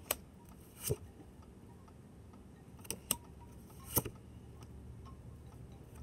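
Large oracle cards being handled and swapped in the hands: a handful of sharp, irregular clicks as card taps against card, the loudest about four seconds in.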